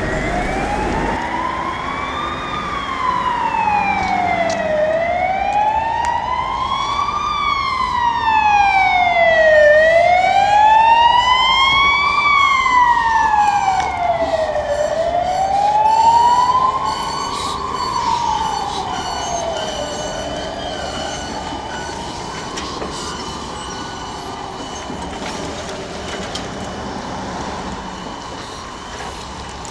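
Emergency vehicle siren wailing, its pitch sliding slowly up and down about every five seconds. It is loudest through the middle, then gradually fades.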